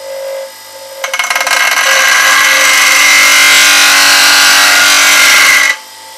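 Bench grinder running with a low hum. At about one second in, a bowl gouge held in a fingernail jig is pressed to the grinding wheel, giving a loud steady grinding hiss for about five seconds as the bevel is sharpened. Near the end it is lifted off and only the grinder's hum is left.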